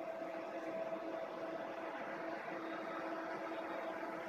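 Steady machine hum from a coal belt conveyor installation: two steady tones, one low and one higher, over an even hiss.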